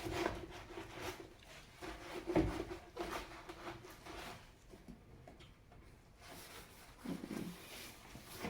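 Cloth or sponge rubbing and scrubbing over a washing machine's surfaces, irregular and faint, with a single knock about two and a half seconds in.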